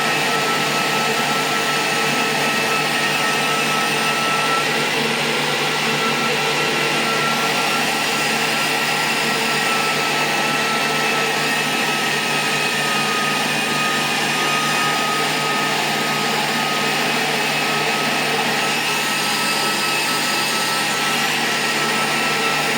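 Repaired 2000-watt IPL epilation device power supply running on test: a steady machine whir with a steady high whine over it, unchanging throughout.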